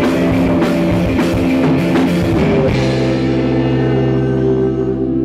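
Live rock band (electric guitars, bass and drum kit) playing loud, recorded on a phone with distorted, clipping sound. About two and a half seconds in, the drums stop and the band holds a sustained chord that rings on.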